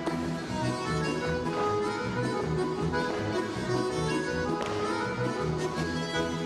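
Music with sustained melody notes over a steady, repeating low rhythm.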